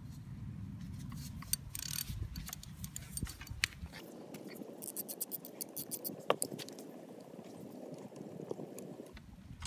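Socket ratchet clicking and metal tools scraping as a motorcycle's frame oil drain plug is loosened, with a quick run of ratchet clicks about five seconds in.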